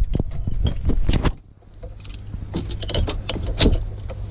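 Clicks and rattles of a T-bar steering wheel lock being handled and pulled together on a steering wheel, in two clusters with a short pause between. Rumbling handling noise on the microphone for the first second or so.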